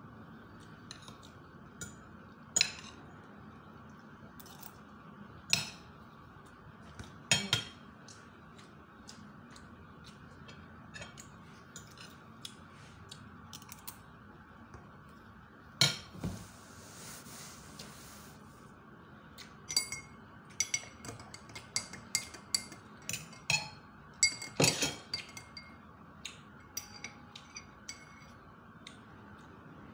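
Metal fork and spoon clinking and scraping against a ceramic plate during a meal: single sharp clinks a few seconds apart, then a quick run of many clinks about twenty seconds in.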